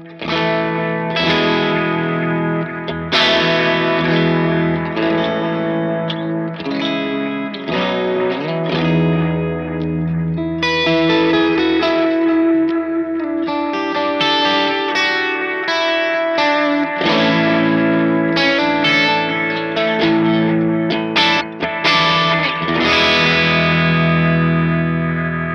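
Electric guitar played through a Sonicake Echo Rain compact delay pedal: chords and single notes ringing and overlapping, with smooth analog-style repeats trailing behind them.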